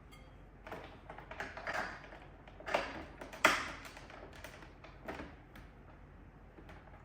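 Scattered light taps, knocks and clicks of kitchen utensils and containers being handled, about a dozen irregular strikes with the sharpest a little under three seconds and about three and a half seconds in.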